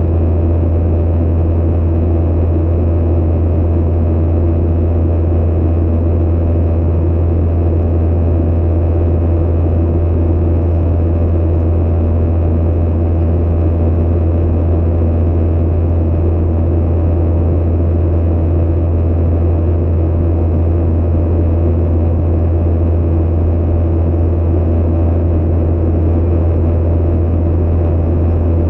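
Steady cabin drone of a Boeing 737-900ER in climb, heard from a window seat beside the engine. The CFM56-7B turbofans and the airflow over the fuselage give an unchanging noise with a strong low hum.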